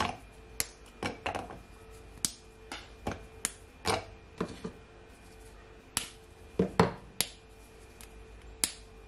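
Chunks of a chocolate block snapped off and dropped into a plastic food-processor bowl onto Oreo biscuits: a string of sharp, irregular clicks and taps, about fifteen in all.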